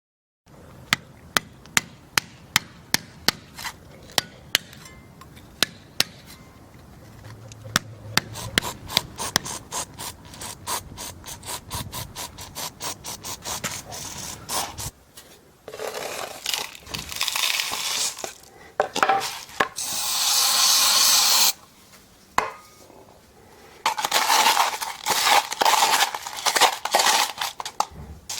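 Hand tools working a cold-lay asphalt patch: a string of sharp taps and knocks at first, then longer gritty scraping and rasping sounds.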